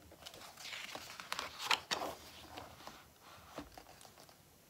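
A hardcover picture book's paper page being turned by hand: rustling and swishing for a couple of seconds, then a soft tap as the page is pressed flat.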